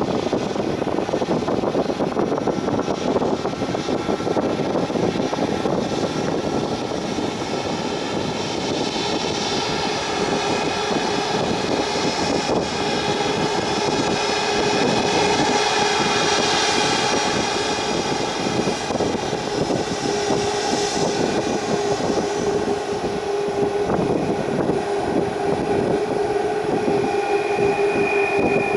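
Boeing 737 MAX 9 airliner's CFM LEAP-1B turbofan engines running: a steady jet roar laced with whining fan tones, with a higher whine coming in near the end.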